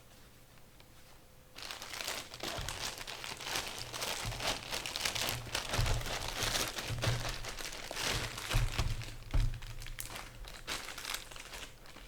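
Packaging crinkling and crackling as it is handled and unwrapped, starting about a second and a half in and continuing with a few dull knocks.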